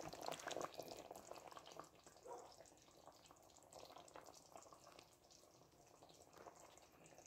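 Faint bubbling and popping from a pot of stewed pork in thick gravy, busiest in the first two seconds and then dying down to scattered small pops.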